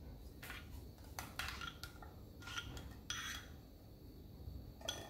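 A spoon scraping and clinking against a small bowl and a metal cake pan as melted butter is spooned into the pan: faint, scattered scrapes and light clicks.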